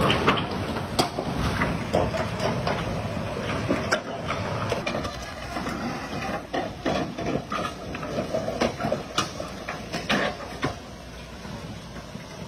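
Floodwater rushing across a washed-out road, with irregular sharp knocks and clicks over the steady rush. Both ease off near the end.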